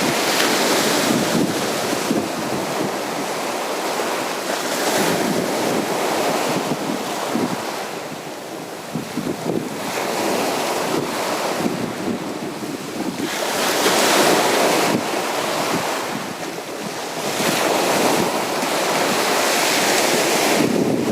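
Sea surf washing onto a beach, a steady rush of water that swells and eases in slow surges, loudest about two-thirds of the way through.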